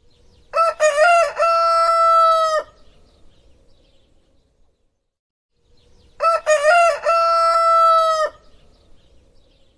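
Rooster crowing cock-a-doodle-doo twice, each crow about two seconds long: a few short broken notes rising into one long held note that cuts off.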